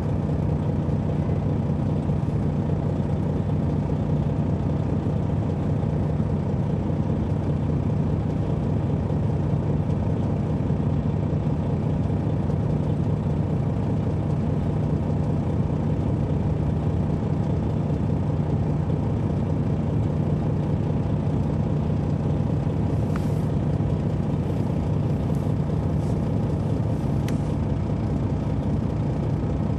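Detroit Diesel Series 60 inline-six diesel of a 2003 MCI D4500 coach running at a steady engine speed, heard from inside the coach as a constant drone. A few faint clicks come near the end.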